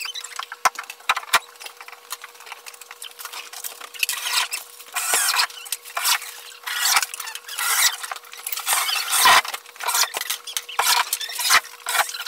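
Corded drill driving screws through a plywood top into a wooden frame: irregular short bursts of scratchy, squeaky noise and sharp clicks, busier in the second half, over a faint steady hum.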